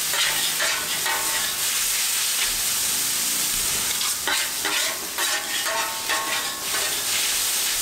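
Noodles sizzling on a hot Blackstone flat-top griddle as they are tossed and stirred, with the steady hiss of frying broken by repeated scrapes and clicks of the metal utensils against the griddle.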